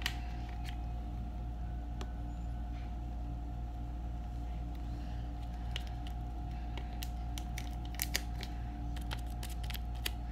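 Small clicks and plastic crinkles as a yellow soap colorant packet is handled and a piece dropped into a plastic bowl of melted soap, with two sharper clicks about eight seconds in, over a steady low hum.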